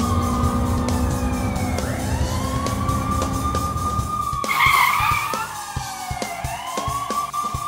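Police car siren wailing, its pitch sliding slowly down and back up, over a low vehicle rumble. A brief noisy burst about halfway through is the loudest moment.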